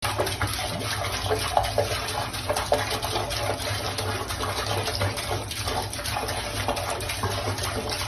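Water running from a bathroom faucet in a thin stream into the sink, splashing steadily.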